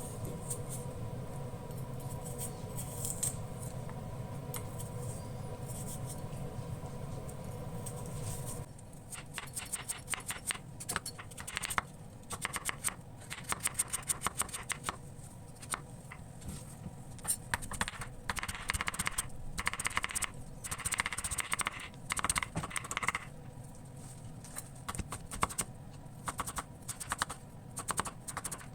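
A steady hum for about the first nine seconds, then irregular clicks, taps and scrapes of kitchen utensils working on food.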